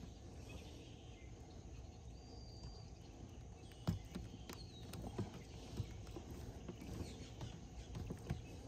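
Faint irregular clicks and taps of hands working a wire bait pin through chicken legs on a crab net, the sharpest about four seconds in, over a low steady rumble.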